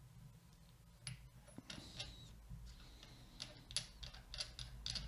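Faint irregular clicks and ticks of a small plastic microphone mount being turned and worked by hand, starting about a second in and coming more often toward the end.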